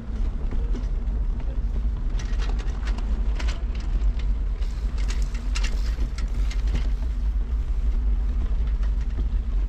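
Steady low rumble of wind and movement noise on a travelling camera's microphone, with scattered light clicks and rattles between about two and seven seconds in.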